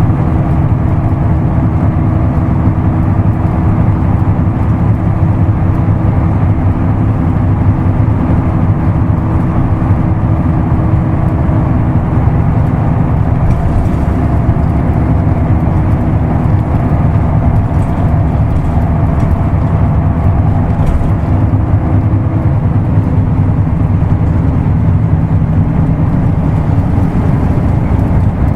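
Isuzu Erga Mio city bus's 6HH1 inline-six diesel running steadily while the bus is under way, the engine note shifting pitch a couple of times partway through.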